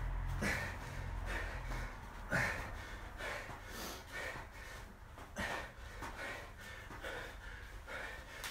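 A man breathing hard in quick, rhythmic puffs, about two a second, while doing mountain climbers. A few sharp taps of sneakers on a concrete floor come with it.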